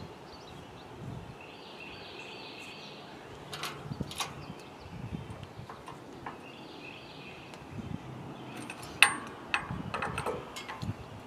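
Quiet outdoor background with a high steady tone lasting about a second and a half, heard twice, and several sharp clicks, the loudest about nine seconds in.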